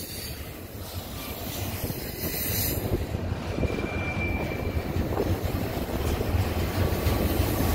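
Double-stack intermodal freight cars rolling past close by on an upgrade, a steady rumble of wheels on rail, with a brief faint high wheel squeal about four seconds in.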